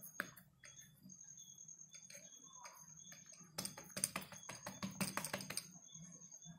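Soft clicks and taps of fingers pressing folded paratha dough against a wooden board, in two short clusters a little past the middle.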